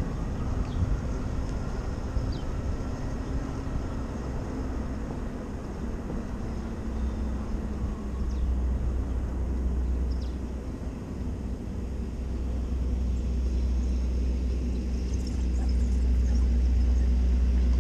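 Wind and road rumble from riding an electric moped along a city street, a steady low rumble with a faint hum under it, growing a little louder near the end as the moped slows to a stop.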